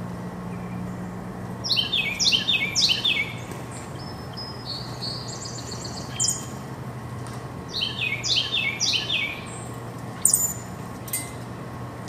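Wild songbirds singing and calling: a quick run of downward-sliding high notes about two seconds in, the same phrase again about eight seconds in, and a short sharp call near the end, over a steady low hum.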